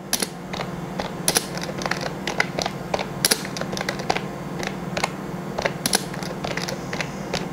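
Typing on a computer keyboard: a quick, uneven run of key clicks, over a steady low hum.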